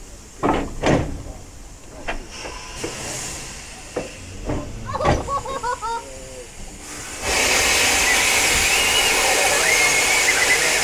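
Saddle-tank steam locomotive blowing steam from its cylinder drain cocks: a loud, steady hiss that starts suddenly about seven seconds in. Before it come a couple of sharp knocks and some lighter knocks from the engine standing against the carriage.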